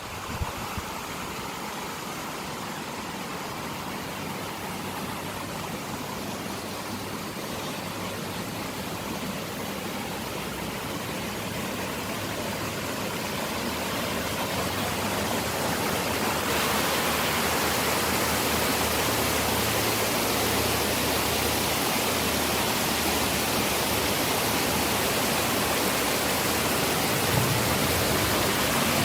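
Waterfall rushing: a steady hiss of falling water that grows gradually louder through the first half and then holds steady.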